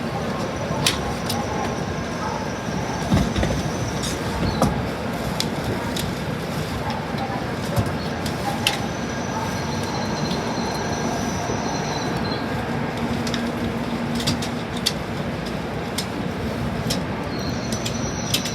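JR Central Shinkansen train heard from inside the car as it runs along: a steady rumble of running noise, with high thin wheel squeals that come and go, and scattered sharp clicks and knocks as the wheels pass over rail joints and points.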